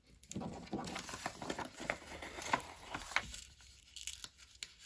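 Paper rustling and crinkling with small taps as stickers and a planner page are handled and pressed down by hand; it quiets to scattered light clicks about three seconds in.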